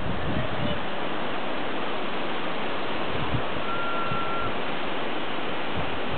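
Steady wash of surf breaking on the rocks at the foot of a sea cliff, heard from above, with a little wind on the microphone. A short, thin whistle sounds about two-thirds of the way in.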